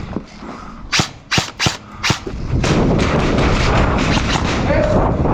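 An airsoft gun fired four times in quick single shots, sharp cracks about a third of a second apart, followed by a loud continuous rushing noise.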